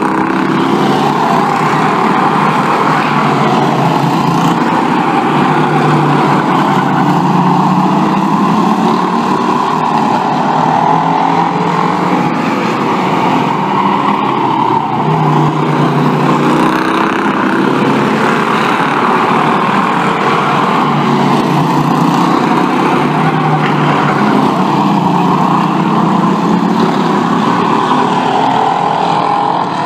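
Bomber-class stock race cars' engines running at racing speed on an oval track, loud and continuous. The sound swells and fades every few seconds as the cars come past through the turn.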